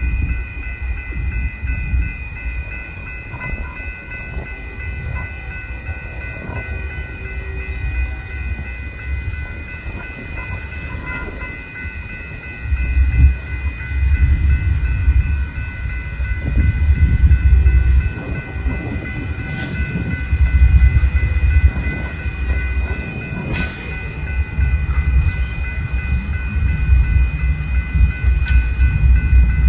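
CSX GE AC44CW diesel-electric locomotives, V16 diesels working, approaching slowly at the head of a loaded coal train. A deep engine rumble swells several times from about halfway through as the units draw near. Steady high tones run underneath throughout.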